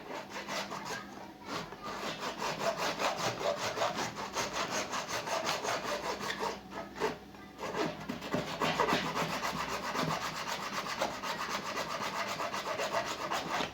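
Hand sawing with rapid, even back-and-forth strokes, about four a second, breaking off briefly a little past six seconds in and then resuming.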